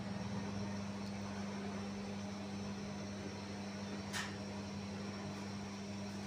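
Steady electric machinery hum of a bakery's equipment: a constant low drone under an even noisy haze, with a brief hiss about four seconds in.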